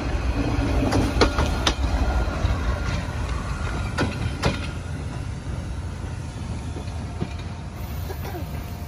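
Passenger train coaches rolling slowly past on the rails: a low rumble with sharp wheel clicks. The clicks stop and the rumble fades about halfway through as the last coach moves away.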